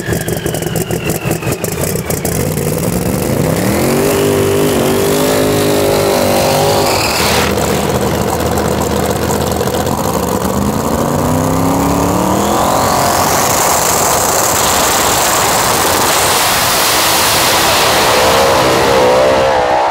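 Pro Mod drag race car engine: a rapid stutter of pops at first, then the engine pitch climbs in two long pulls with a high whistle rising above it, and a loud sustained roar through the last several seconds.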